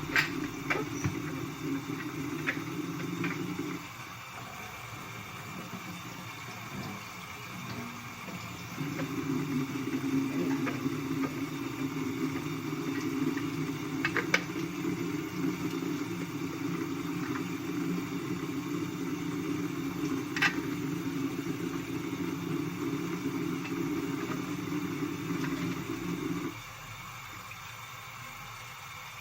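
Water running from a kitchen faucet onto parts being rinsed in a tray. It shuts off about 4 seconds in, runs again from about 9 seconds and stops sharply near the end, with a couple of light clicks of the parts being handled.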